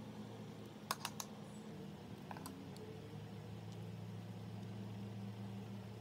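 Plastic makeup packaging clicking as it is handled: three sharp clicks close together about a second in, then a few fainter ticks, over a steady low hum.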